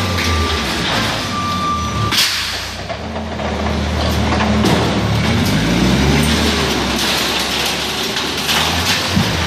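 Forklift engine running and changing pitch as the mast pushes its forks into a drywall-and-metal-stud wall, with a sharp crash of breaking wall about two seconds in and more cracking near the end. Two held high beeps sound in the first two seconds.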